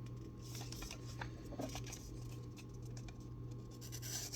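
Faint handling noises: scattered light clicks and short rustles as a small folding knife and its packaging are handled, over a steady low hum.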